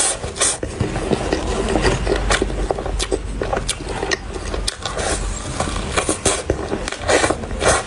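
Close-up eating sounds: chewing a cream-filled choux cream puff, with many short wet mouth clicks and smacks, over a steady low rumble.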